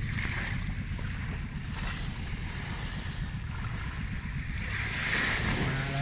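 Small waves washing up onto a sandy beach, the foam hissing in near the start and again about five seconds in, over a steady rumble of wind on the microphone.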